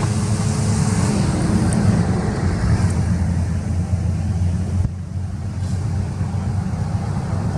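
Steady low rumble with a hum, with no animal calls standing out; it dips briefly about five seconds in.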